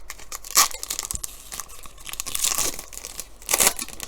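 Trading-card pack wrapper crinkling and tearing in a few short bursts: once about half a second in, a longer stretch in the middle, and again near the end.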